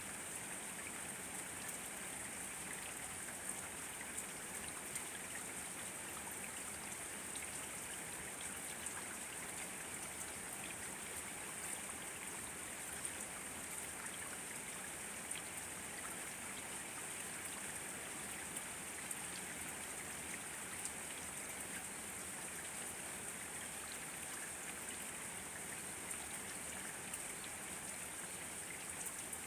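Steady rain falling: an even hiss with many small scattered ticks of individual drops.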